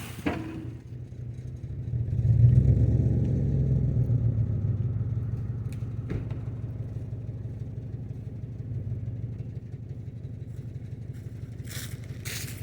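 An engine running with a steady low drone; about two seconds in it speeds up under load, then settles back to a steady idle.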